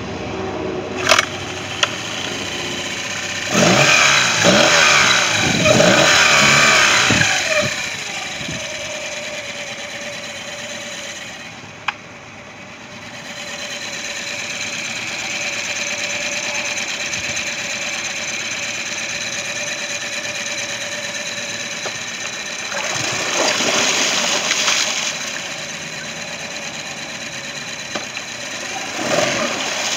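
Mercury outboard engine running in a water test barrel, revved up twice with the throttle and settling back to a steady run in between. It is running again after engine oil was drained from its cylinders and carburetor.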